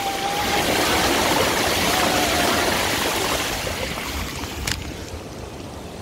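Mountain bike tyres rolling through shallow water over a concrete ford, with a steady hiss of splashing spray that thins out in the last second or two as the bike reaches drier ground. A single sharp click comes about three quarters of the way through.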